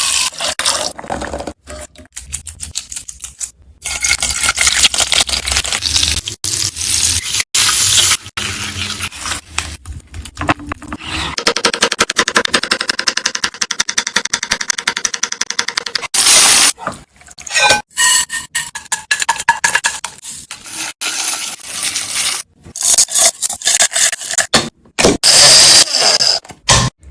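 Kitchen sounds from cooking egg biryani: utensils scraping and clinking against pans and dishes, with sharp knocks. They come in short bursts that start and stop abruptly, and a steady noisy stretch runs for a few seconds midway.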